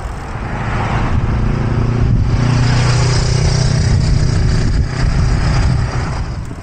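A motor vehicle's engine running close by, steady, with road noise, swelling about half a second in and easing off near the end.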